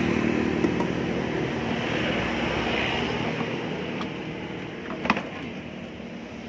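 Used vacuum cleaner's motor running, growing steadily quieter, with weak suction blamed on a dirty filter. A single knock about five seconds in.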